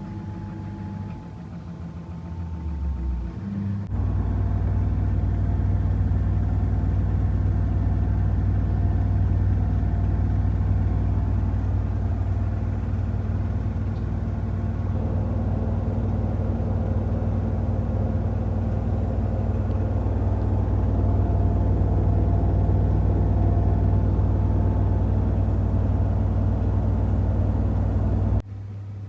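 Samsung washing machine running: the drum winds up over the first few seconds, then holds a loud, steady spin with a deep drone and motor hum, dropping off abruptly near the end.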